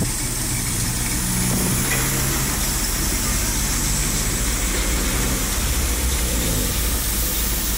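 Pickup truck engine running steadily at idle.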